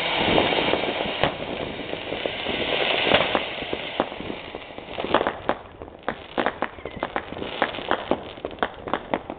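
A ground firework fountain spraying sparks with a dense hiss for the first four seconds or so, with one sharp crack early on. After that comes a scattered string of sharp cracks and pops from firecrackers.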